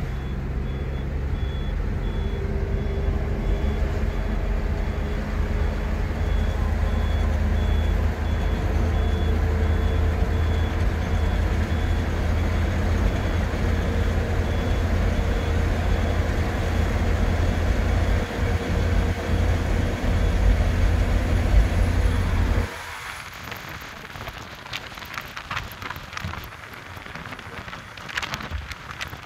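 Vehicle engines and road noise while driving at speed alongside a bus: a loud, steady low drone whose hum creeps slowly higher in pitch. About three-quarters of the way through it cuts off abruptly, leaving quieter road noise with scattered clicks.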